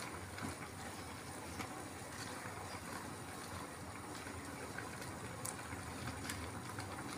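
Steady low hiss of vegetables in sauce simmering in an aluminium wok, with a few faint clicks as a spatula stirs them.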